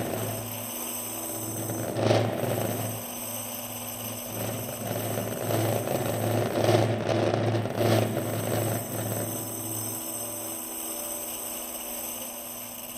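Low throbbing hum from a DIY prepared speaker system built from old CRT-television speakers, with drums laid on the speakers. The loose metal jingle discs and objects on the drumheads rattle and buzz in swells, once about two seconds in and again between about six and eight seconds.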